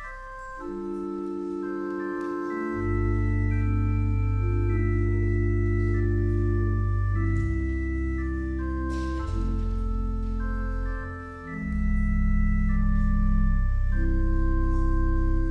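Church organ playing slow, sustained chords, with deep pedal bass notes coming in about three seconds in and a brief lull in the bass about eleven seconds in.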